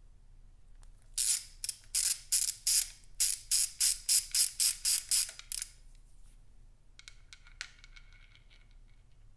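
Socket ratchet clicking in a run of about a dozen strokes, roughly three a second, as a 1/4-inch Whitworth fitting is worked loose; a few fainter metallic ticks follow about seven seconds in.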